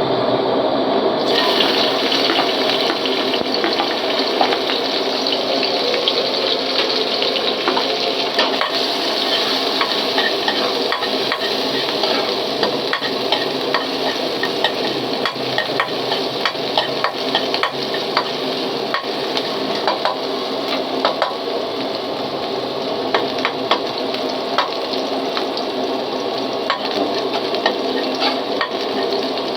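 Food sizzling in a hot pan while being stirred, with a utensil scraping and clicking against the pan. The sizzle turns brighter and louder about a second in.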